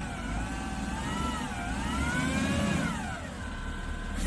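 Engine running with its pitch rising and falling slowly twice, then holding steady near the end.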